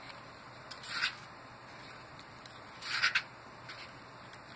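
Pages of a paper booklet being turned by hand: short papery swishes, one about a second in and a louder double one about three seconds in.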